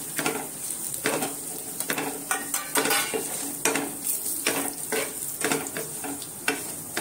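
Steel spoon stirring and scraping in a non-stick frying pan in irregular strokes, over a steady sizzle of hot oil as powdered spices fry in the tempering.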